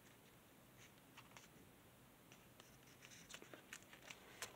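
Faint crinkling and creasing of folded origami paper under the fingers: a few soft, scattered crackles that come more often toward the end.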